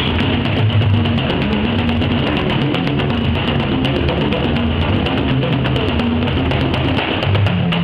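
Two bodhráns played together with tippers in a fast, unbroken rhythm of dense strokes, the deep drum tones stepping up and down in pitch.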